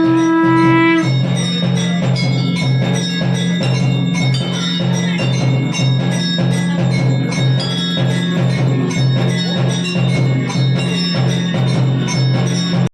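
Music: it opens with a single held bell-like note, then a steady pulsing beat carries on with quick mallet-like notes over it.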